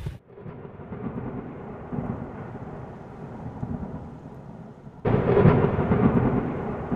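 Thunder rolling over steady rain. A louder roll of thunder breaks in suddenly about five seconds in and slowly fades.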